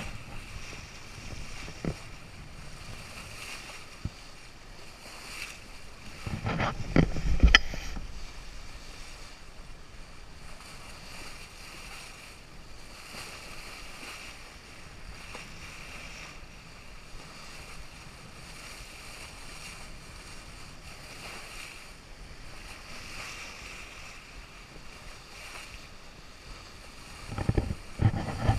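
Water rushing and foaming along the hull of an Amel Maramu ketch sailing downwind, with wind buffeting the microphone. Two louder rushes come about seven seconds in and near the end.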